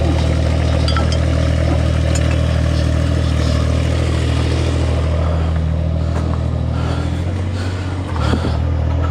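An engine running steadily, its pitch sagging about seven seconds in, dipping briefly about a second later and then picking back up, with a few light clanks.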